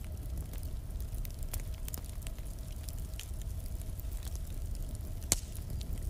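Fire crackling: a steady low rumble of flames with scattered sharp pops, the loudest about five seconds in.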